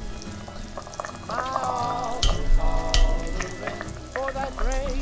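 Chicken soup bubbling at a simmer in an enamelled cast-iron pot, with a few sharp clicks of metal tongs and a knife against the pot as the chicken thighs are cut.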